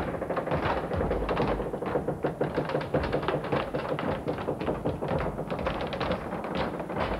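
Wooden treadwheel crane turning and hoisting a load on its rope: a dense, continuous run of rapid wooden clicks and knocks that starts suddenly.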